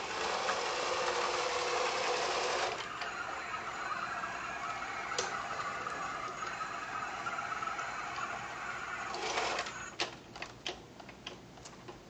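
iRobot Create robot base's drive motors whirring steadily as it drives across a hard floor. The whir shifts in pitch about a third of the way in and stops near the end, followed by a few sharp clicks.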